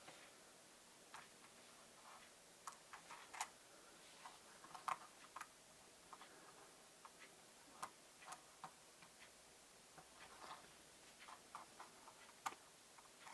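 Scattered light clicks and taps at an irregular pace from small plastic parts being handled while the DJI Mini 4K drone's propeller blades are replaced. The sharpest clicks come about three and a half, five, eight and twelve and a half seconds in.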